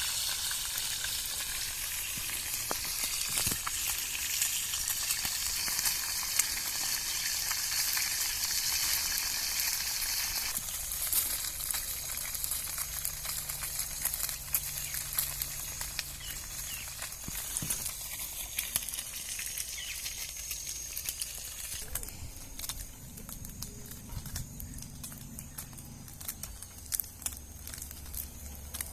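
Small lambari fish frying in hot oil in a pan over a campfire: a steady sizzle with scattered crackles and pops. The sizzle drops off sharply about a third of the way in and again later.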